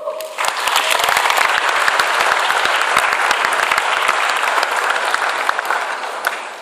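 Audience applause, many people clapping hands together. It starts about half a second in and dies away near the end.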